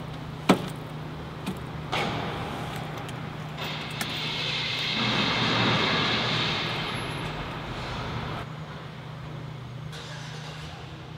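Car seatbelt pulled across and buckled, with a few sharp clicks in the first two seconds, over the steady low hum of an idling car. In the middle a rush of passing-vehicle noise swells and fades, loudest around six seconds in.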